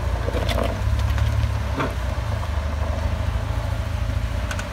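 Willys flat-fender jeep's engine running steadily at low revs as the jeep crawls up a rock ledge, with a few short, sharp clicks.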